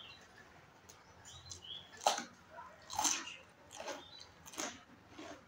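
Close-up mouth sounds of a person eating with the mouth near the microphone: chews and bites come about once a second, starting about two seconds in.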